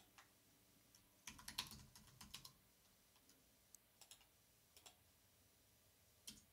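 Faint typing on a computer keyboard: a quick run of keystrokes about a second in, then a few scattered single clicks.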